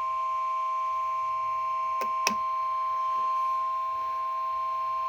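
NOAA Weather Radio warning alarm tone: one steady, high tone of about a kilohertz held without a break, with a fainter lower tone beneath it and two brief clicks about two seconds in. It signals that a warning broadcast follows.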